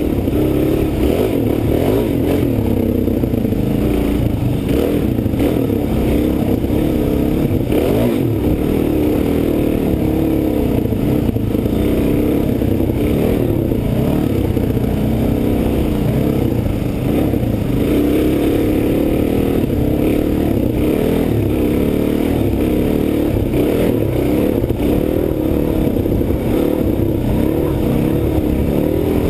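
Dirt bike engine running close to the bike-mounted camera, its pitch rising and falling as the throttle is worked along a twisting trail.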